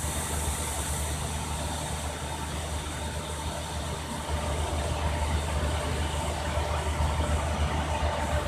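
Belt filter press running steadily while dewatering sludge: a continuous low machine hum with a hiss of motor and roller noise, growing a little louder about halfway through.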